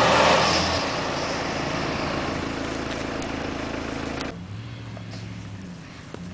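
Off-road 4x4 engine working hard as the vehicle drives through deep mud, loud at first and fading away. About four seconds in the sound drops abruptly to a quieter, steady engine drone.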